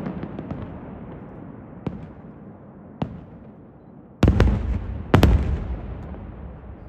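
Aerial fireworks shells bursting. The rumble of a big burst fades away, two small sharp cracks follow, and then come two heavy booms about a second apart, each trailing a long rolling echo.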